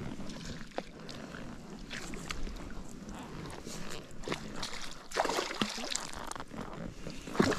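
Water splashing irregularly as a hooked fish thrashes at the surface and a landing net is worked through the water, with the loudest splashes about five seconds in and again near the end.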